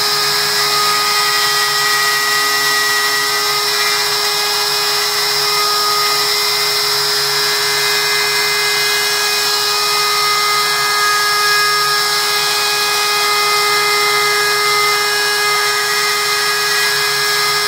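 DeWalt trim router on a MakerMade M2 CNC running steadily at a constant high whine while the machine moves it through a cut in a plywood sheet.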